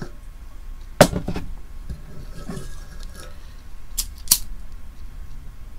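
Hard objects being handled on a table: a sharp knock with a short ring about a second in, a few softer knocks, then two quick sharp clicks about four seconds in.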